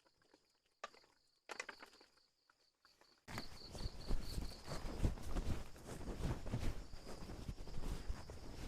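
Insects chirping with a steady pulsing trill, faint at first. About three seconds in, close footsteps and rustling start suddenly and carry on as a busy run of irregular thuds and brushing.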